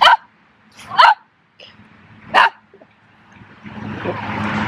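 Cavalier King Charles spaniel barking at a duck: three short, sharp barks about a second apart. A steady rushing noise builds up near the end.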